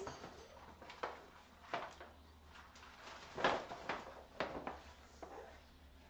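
Brown kraft-paper gift bag rustling and crinkling as it is lifted and handled, in several short bursts, the loudest about three and a half seconds in.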